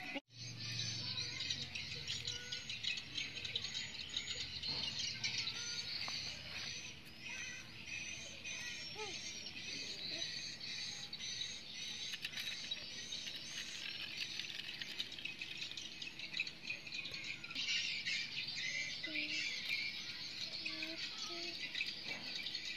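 A steady chorus of insects chirring, with a bird repeating a short high chirp about twice a second for several seconds.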